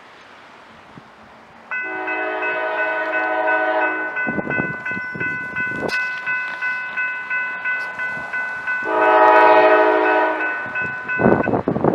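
Railroad crossing bell ringing with a steady repeated strike, while an approaching Norfolk Southern locomotive sounds its multi-note air horn for the crossing: a blast of about two seconds starting near two seconds in, and a louder one near nine seconds. A vehicle rushes past over the crossing around four seconds in and again near the end.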